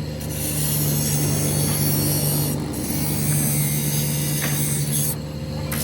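A motor-driven workshop machine humming steadily, with a loud hissing rush that starts about half a second in, breaks off briefly midway and stops near the end.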